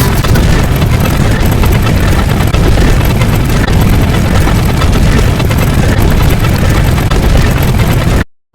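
Very loud, dense rumbling noise, heaviest in the lows and steady throughout, that cuts out to silence for a moment near the end.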